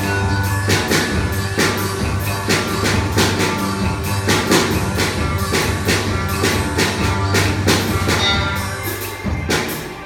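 Instrumental rock played live by a robot band: a mechanically struck drum kit keeps a steady beat of about two hits a second under electric guitars and a held low bass note, which drops out shortly before the end.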